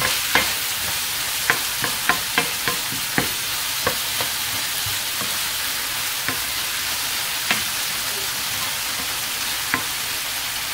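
Diced tomatoes, mushrooms and vegetables frying in oil in a nonstick pan with a steady sizzle, the water from the fresh tomatoes cooking off. A plastic spatula stirs them, tapping and scraping against the pan at irregular moments, most often in the first few seconds.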